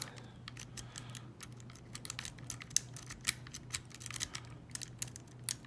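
Sparrow snake rake worked in and out of a Falcon SFIC cabinet lock's core, its pin stack clicking irregularly and rapidly against the rake.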